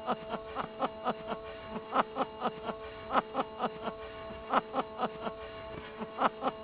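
A man laughing in short repeated 'ha' sounds, about three a second, over a steady held musical tone.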